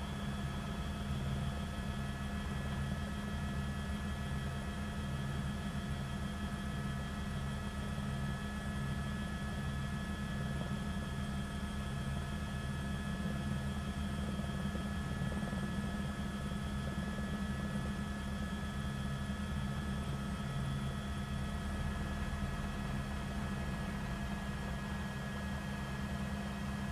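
Steady drone of a helicopter's rotor and turbine engine, heard from aboard: a constant low sound that pulses slightly, with a few faint steady higher tones over it.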